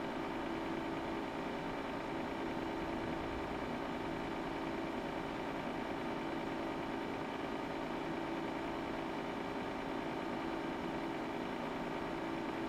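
Steady hum of cooling fans in bench test equipment, a constant whir with a low tone and a few higher tones held over an even hiss.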